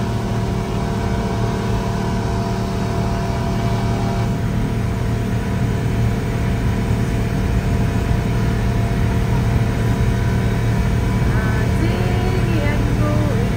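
Motorboat engine running steadily underway, a constant drone at an unchanging pitch over a rush of water and hull noise.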